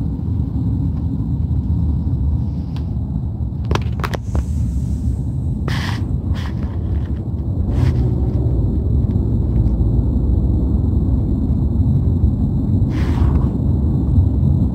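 Steady low rumble of traffic, heard from inside a moving car driving alongside heavy tanker trucks, with a few brief clicks scattered through it.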